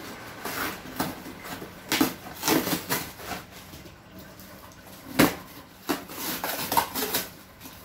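Cardboard box being torn open by hand and its contents handled: short scrapes and rustles of cardboard and plastic, with a sharp knock about five seconds in.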